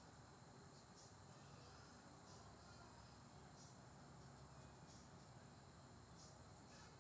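Crickets trilling in a steady, high, continuous chorus, with softer chirps about once a second, over a faint low rush of wind. The high trill drops away suddenly about six and a half seconds in.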